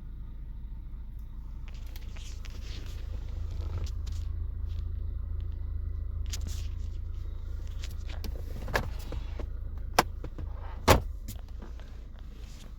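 2011 Infiniti G37x's 3.7-litre V6 idling at low RPM in drive, with a subtle metallic rattle. The rattle is the neck of the windshield washer reservoir knocking against the inner fender after its securing clip failed. Three sharp clicks come in the last few seconds, the last one the loudest.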